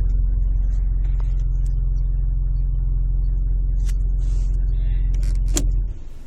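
A car's grinding noise from underneath, heard with the car in Drive or Reverse: a loud, steady low drone that cuts off suddenly about six seconds in. A few short clicks come just before it stops.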